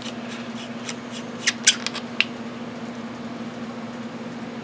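A quick run of four or five sharp plastic clicks and taps, about one and a half to two seconds in, from handling the small battery-powered work light and its lithium cell, over a steady low hum.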